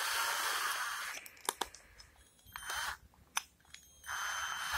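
Cordless drill's keyless chuck being worked to clamp a wood drill bit: a stretch of whirring, then sharp clicks and short bursts of whirring as the chuck is spun and tightened.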